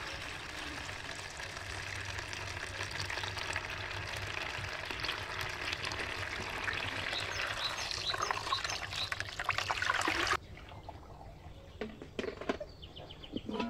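A stream of water pours and splashes steadily onto chopped lamb organ meat in a plastic colander, rinsing it, and stops abruptly about ten seconds in. A few faint bird chirps follow near the end.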